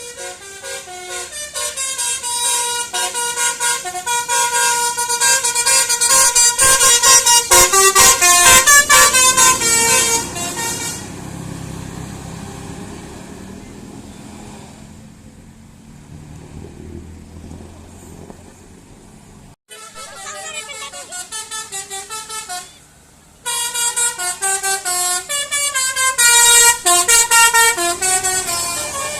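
Bus 'telolet' horns: multi-tone air horns playing quick melodic runs of shifting notes. They stop after about eleven seconds, leaving a quieter rumbling stretch, then start up again around twenty seconds in, cut off briefly, and are loudest near the end.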